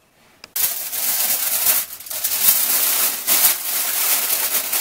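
Aluminium foil crinkling and crackling as it is folded and pressed around a bundle of tomatillos. It starts suddenly about half a second in and goes on as a continuous dense crackle.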